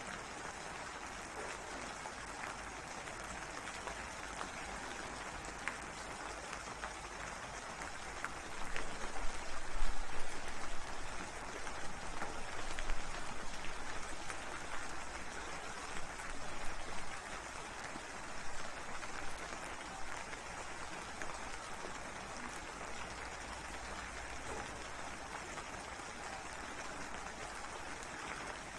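Steady rain falling, with a roll of thunder that swells about eight seconds in, peaks sharply, and dies away over roughly ten seconds.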